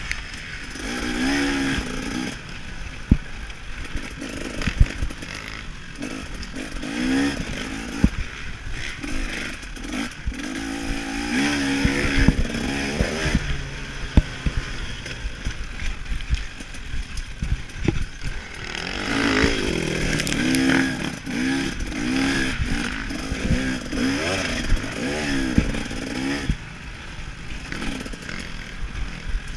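KTM 300 XC-W's single-cylinder two-stroke engine revving up and down over and over as the dirt bike is raced around a motocross track, with scattered sharp knocks and clatter from the bike over the bumps.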